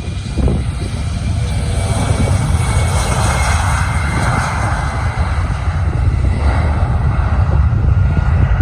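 Boeing 717-200's twin Rolls-Royce BR715 turbofan engines at takeoff thrust: a loud, deep, steady rumble with a rushing hiss that swells a few seconds in, growing slightly louder overall.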